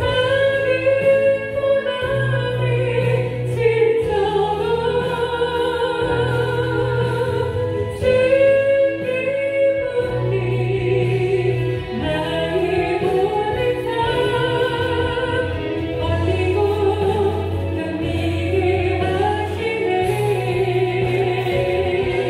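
A solo female voice singing a Korean Christian worship song in long notes with vibrato, over an instrumental accompaniment whose bass notes change every couple of seconds.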